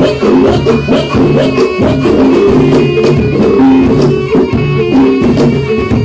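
Loud traditional Javanese music accompanying a barongan dance: quick drum strokes under a pitched, repeating melody.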